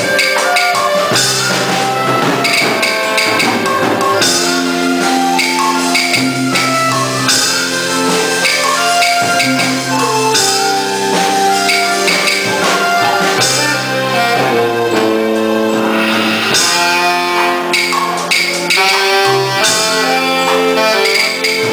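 Instrumental music from a small live band of erhu, saxophone, electronic keyboard and drum kit: held melody notes over a stepping bass line, with steady drum and cymbal strokes.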